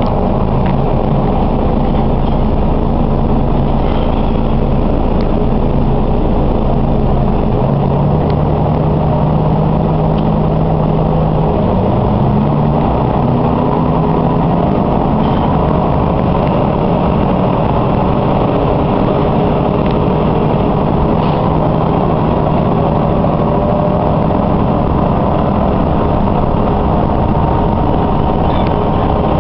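Diesel railcar engine heard from inside the car, running steadily at first and then rising in pitch from about twelve seconds in as the railcar pulls away and gathers speed.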